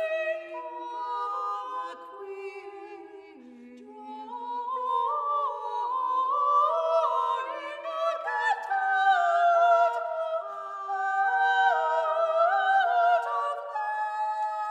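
Soprano and mezzo-soprano singing together in a new classical art song, with no accompaniment heard. Long held notes in two lines step up and down against each other. The sound softens about three seconds in, then swells again.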